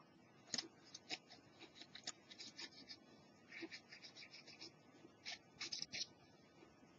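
Cotton swab scrubbing the circuit board of a portable cassette player to rub off blue-green corrosion: a series of short, dry scratching strokes, some single and some in quick runs.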